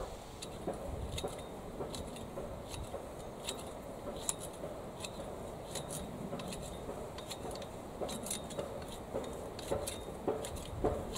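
Long-handled grass shears snipping the grass edge of a path: a run of irregular metallic clicks and snips, about one or two a second.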